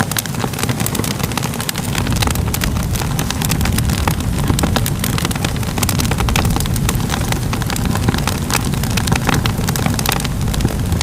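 Crackling fire: a steady low rumble of burning with many quick, irregular pops and snaps over it. The rumble grows a little louder about two seconds in.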